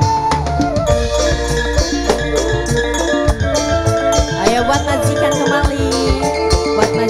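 Live band music: a flute carries a gliding melody over steady drums and rattling percussion.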